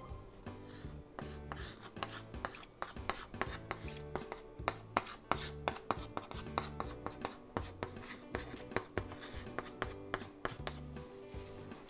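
White chalk writing on a small handheld blackboard: a long run of quick taps and short scratching strokes as the characters are drawn, under quiet background music.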